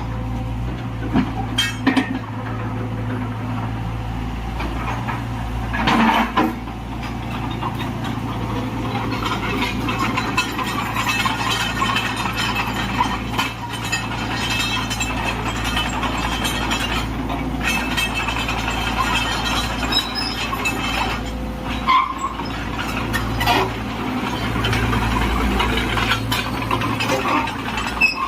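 Cat 305.5E2 mini crawler excavator's diesel engine running steadily, with occasional sharp metallic clanks.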